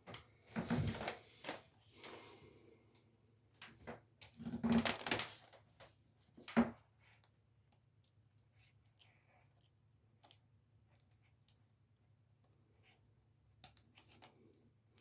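Plastic cable trunking being handled and worked by hand: a run of sharp clicks and knocks over the first seven seconds or so, then only occasional faint ticks.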